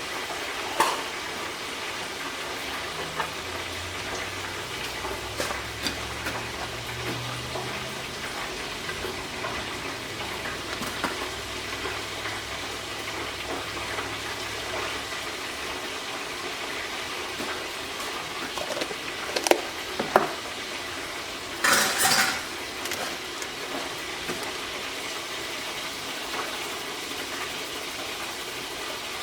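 Chicken frying in hot oil, a steady sizzle with scattered clinks of utensils and pans. A louder hiss flares for about a second about two-thirds through.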